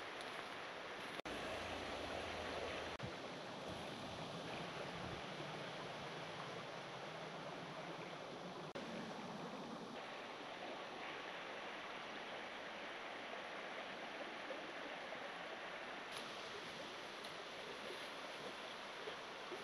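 Steady rushing outdoor background noise, broken by a brief sudden dropout about a second in.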